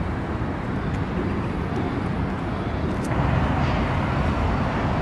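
Steady outdoor background noise: a low rumble with a hiss over it, getting a little louder and brighter about three seconds in.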